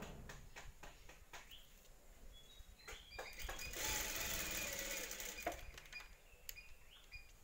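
Industrial flat-bed sewing machine stitching in one short run of a second or two about halfway through, with light clicks of the machine and fabric handling before and after.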